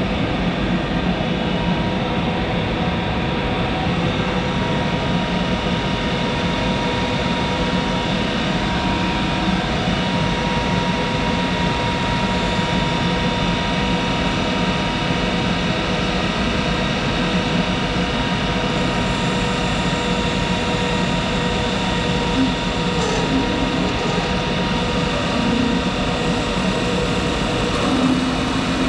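Monarch 10ee lathe running at a steady speed, its original motor-generator DC variable-speed drive giving a steady hum with several held tones.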